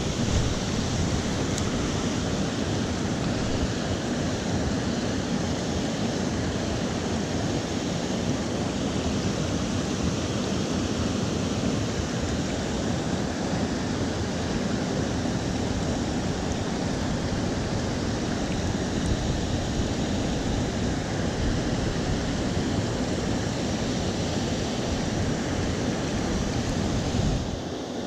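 Steady rush of fast-flowing creek water, which drops away abruptly just before the end.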